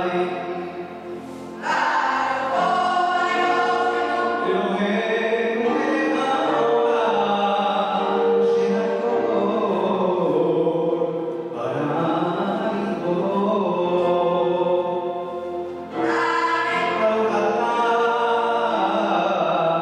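Male choir singing, accompanied by cello and keyboard. The phrases break off briefly and the voices come back in together about two seconds in, and again near the end.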